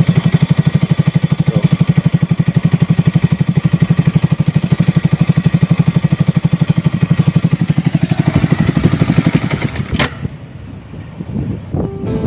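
Yamaha R15 V3's single-cylinder four-stroke engine idling with an even rapid pulse through a Ronin Black Katana aftermarket exhaust. The silencer is split at its hanger joint, so exhaust gas leaks out there and spoils the note. About ten seconds in the engine is shut off, ending with a click.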